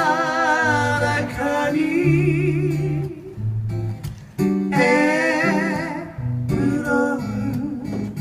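Live band music: guitar accompaniment with a steady bass line under a sustained melody line with a wide vibrato, played in two long phrases.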